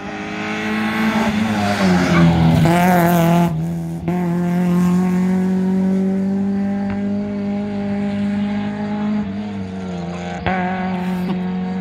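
Rally car engines at full throttle. In the first few seconds the revs climb and fall through gear changes; after a sharp break near four seconds, an engine holds a steady high note that drops slightly about nine seconds in.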